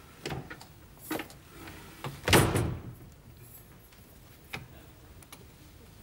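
Doors being opened: a few light clicks and knocks, with one louder knock a little over two seconds in.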